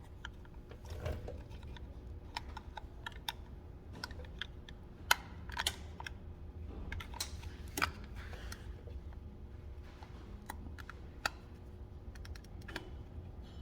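Irregular light clicks and taps of a car door latch assembly and its linkage being handled and fitted into the door, with a few sharper knocks about 5 and 8 seconds in.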